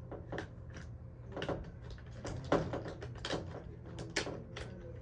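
Hard plastic toy car playset pieces clacking as they are handled: a string of sharp clicks and knocks, the loudest about halfway through.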